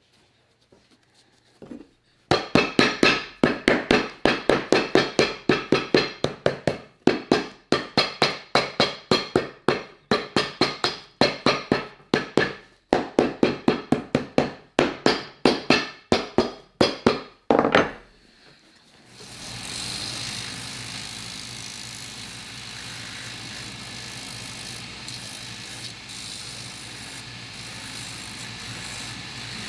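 A hammer strikes a boot sole or heel over and over, about three blows a second with brief pauses. About nineteen seconds in, an electric machine starts and runs steadily with a low hum.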